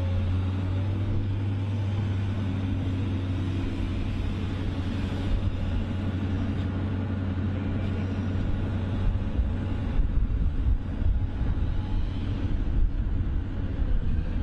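A large machine's engine running steadily with a constant low hum, with heavier, uneven rumbling from about two-thirds of the way in.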